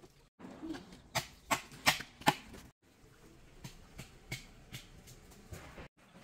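A series of sharp clicks and knocks: four strong ones in quick succession about a second in, then a few fainter ones.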